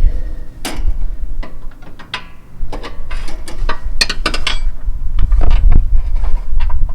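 Metal parts and tools clicking and knocking as a part is worked into place under a garden tractor's mower deck. The clicks come irregularly, with a quick run of them about four seconds in, over a low rumble.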